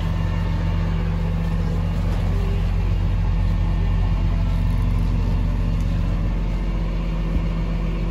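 The Kenworth rollback's 300-horsepower PACCAR diesel engine idling with a steady, even hum, heard from inside the cab.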